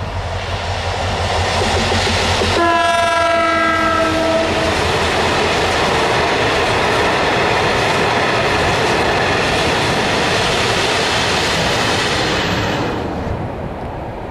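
Diesel-hauled freight train of butane tank wagons passing close by: the locomotive sounds one horn blast of about two seconds, and the steady rumble of the wagons rolling past fades away near the end.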